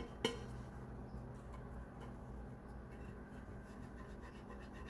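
Faint rubbing of a cloth wiping down the microwave turntable plate, with two light clicks of the plate at the very start.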